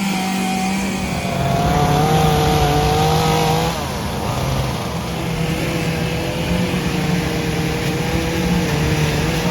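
Chainsaw running at high revs, its pitch dropping about four seconds in and then holding steady.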